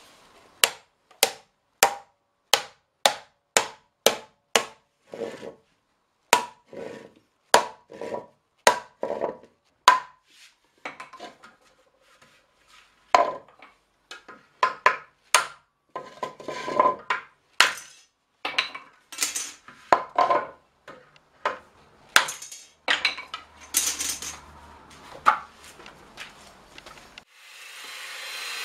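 Hammer blows on a hoop driver, driving the metal hoops down tight on a small wooden barrel: a run of sharp knocks, about two a second at first, then more irregular after a short pause. Near the end an angle grinder with a sanding disc starts up and runs.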